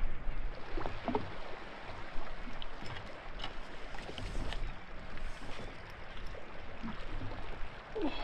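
Water lapping against the hull of a drifting jet ski, with small clicks and creaks from a fishing reel being wound in.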